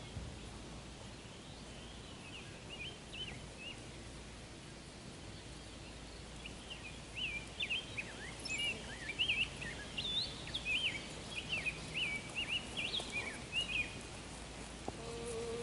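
A songbird singing short, quick chirping and warbling notes, a few at first and then a busy run through the second half, over steady outdoor background noise.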